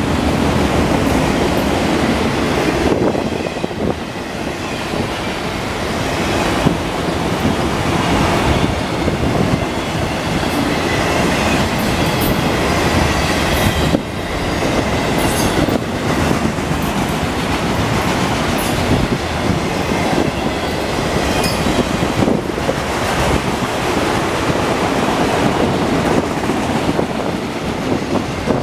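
Freight train auto rack cars rolling past at close range: a steady rumble and clatter of steel wheels on the rail, with brief high wheel squeals a few times.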